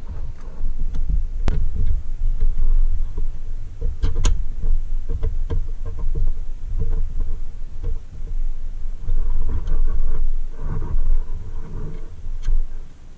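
Hands handling painted pressed-steel Tonka toy body parts close by, giving a dense low thumping rumble with a few sharp metallic clicks and taps as the pieces are fitted together.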